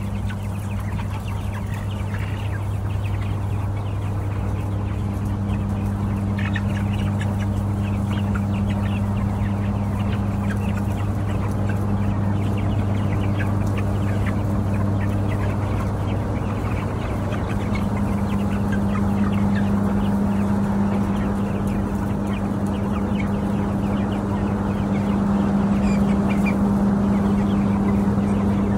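A flock of white broiler chickens clucking and calling continuously over a steady low hum from the poultry house's large ventilation fans.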